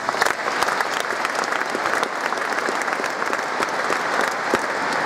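Large audience applauding, a dense steady clapping that starts sharply at the beginning.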